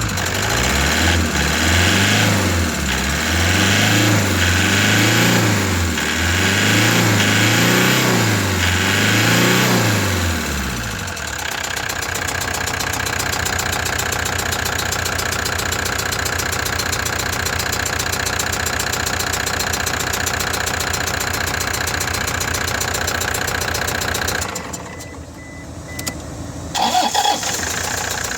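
Toyota Hiace engine running on its test start after a new timing belt and water pump were fitted. It is revved up and down about five times in the first ten seconds, then settles to a steady idle, with a brief drop in level near the end.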